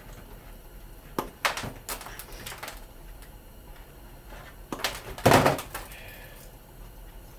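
Plastic parts of a cool-mist humidifier knocking and clattering as it is taken apart by hand, a few scattered knocks with one loud bang a little past halfway.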